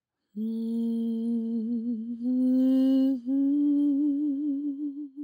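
A woman humming three long held notes, each a little higher than the last, the pitch wavering on the first and last.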